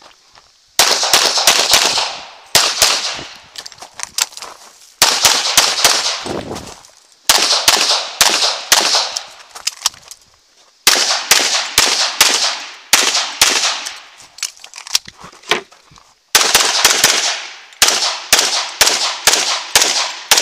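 Pistol shots from a CZ Tactical Sport fired in fast strings, six bursts of several rapid shots each, with short breaks between them while the shooter moves and shifts to new targets. Each shot is a sharp crack, and every burst trails off in echo.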